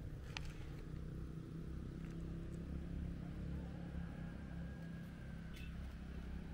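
An engine running steadily with a low, even hum, and two short sharp clicks, one just after the start and one near the end.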